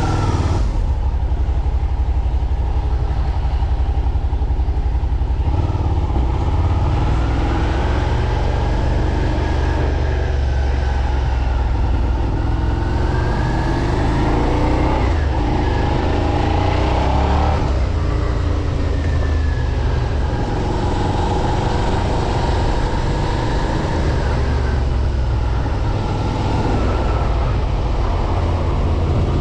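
A2-restricted 2024 Suzuki SV650's stock 645 cc V-twin running under way, its revs rising and falling several times as it pulls and eases off.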